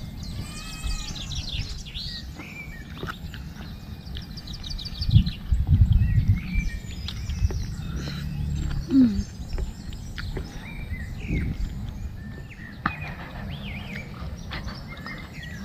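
Small birds chirping and calling over and over, with quick repeated notes and short rising and falling whistles, over a low outdoor rumble that swells loudest about five to six seconds in.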